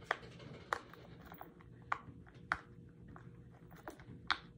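Small silicone pop-it fidget toy, its bubbles pressed in one by one with the fingers, giving short sharp pops at irregular spacing, about five loud ones and a few fainter, over a steady low hum.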